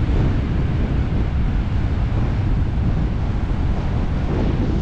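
Strong storm wind buffeting the microphone, a steady rough rumble heaviest in the low end, with the noise of surf from the sea mixed in.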